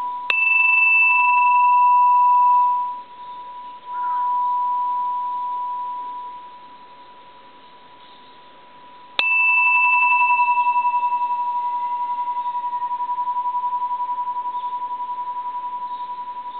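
Small bronze Japanese Buddhist bell struck twice with its striker, once at the start and again about nine seconds in. Each strike is a sharp tap followed by a long, clear ringing tone with a higher overtone that dies away within a few seconds, while the main tone lingers and fades slowly with a steady wavering pulse.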